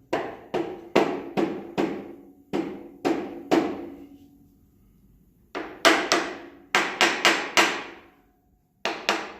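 Hammer tapping a part into place on a Grizzly G1021 thickness planer: sharp strikes with a short ringing tail, in three runs of about eight, then seven after a pause, then two near the end.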